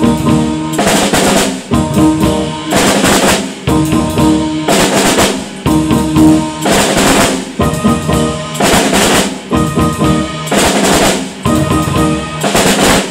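Acoustic drum kit played in a steady, continuous beat, with snare, bass drum and toms and louder cymbal-and-drum accents at regular intervals.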